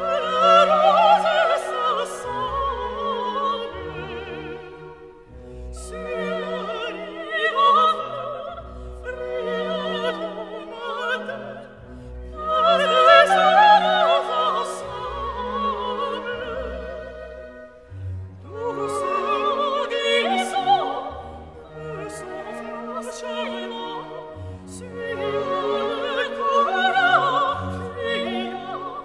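Operatic music: singing with wide vibrato over an orchestra, in phrases of a few seconds.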